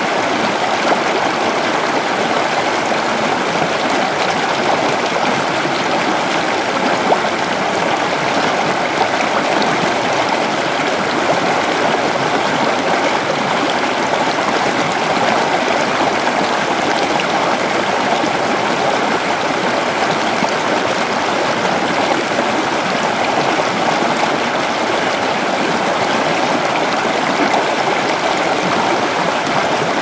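Shallow, rocky river flowing and splashing over stones: a steady, even rush of water with no breaks.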